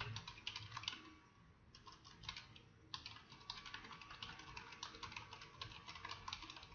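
Typing on a computer keyboard: a quick run of faint key clicks, pausing briefly about a second in before carrying on.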